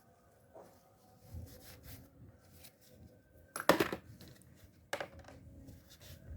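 Small metal fishing-reel parts and tools clinking and being handled during disassembly, in a run of light clicks; the loudest is a sharp metallic clink a little over three and a half seconds in, with another about a second later.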